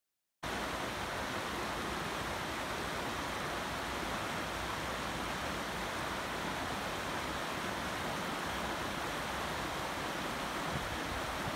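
Shallow river rushing over a rocky riffle: a steady wash of running water that starts suddenly about half a second in, after a moment of silence.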